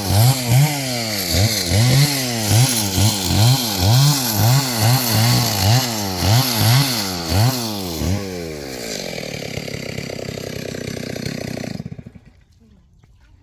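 A small engine revving up and down about twice a second, then running more steadily from about eight seconds in, and cutting off suddenly near the end.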